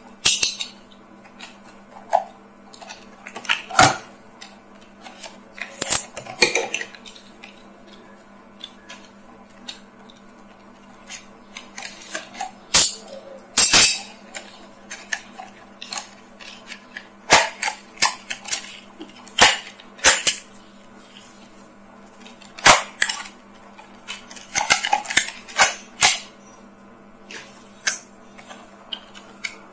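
Plastic blister packaging and card being handled and torn open: irregular crinkles, snaps and clicks, with a faint steady hum underneath.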